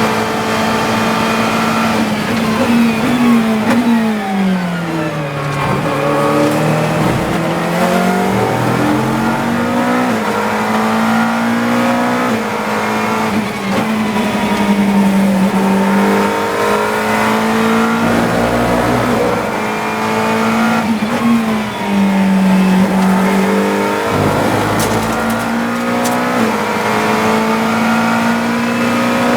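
GT3 race car engine heard from inside the car at racing speed. A few seconds in, and again about twenty seconds in, the pitch drops in steps as it brakes and downshifts, then climbs again through the gears under hard acceleration.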